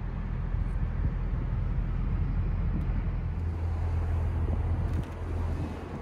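2018 Audi S5's V6 engine idling steadily, heard from inside the cabin.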